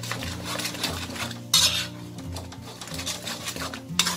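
Metal spatula scraping and clanking against an aluminium wok as a runny shrimp-paste sauce is stirred. The loudest scrape comes about a second and a half in, and another near the end.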